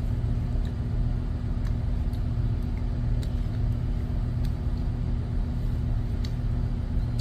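Steady low machinery hum with a constant tone, with a few faint, irregular clicks on top.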